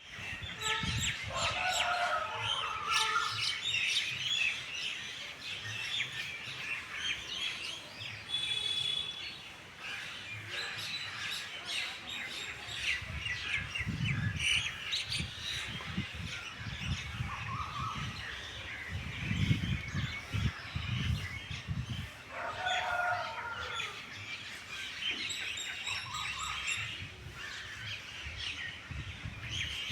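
A morning chorus of many small birds chirping and twittering without a break, with a lower, repeated call twice, about a second in and again about 22 seconds in. A few low rumbles come in between.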